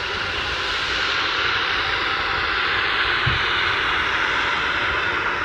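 Narrow-gauge steam locomotive letting off steam: a loud, steady hiss.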